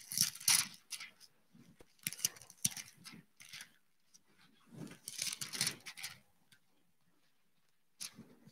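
Pages of a Bible being turned at a pulpit: faint paper rustling in three short spells a couple of seconds apart, with a few small clicks between.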